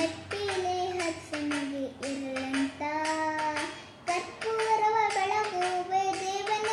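A young girl singing a song solo, with long held notes and smooth glides between them.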